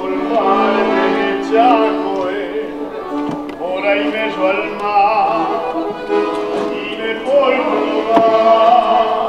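A singer with a wide vibrato, operatic in style, sings an Italian song over held accordion chords.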